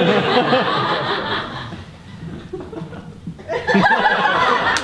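Audience laughing. The laughter fades about two seconds in and swells again near the end.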